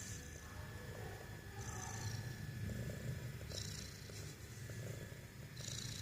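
A cat snoring while awake: a continuous low rumble, with a hissing breath about every two seconds.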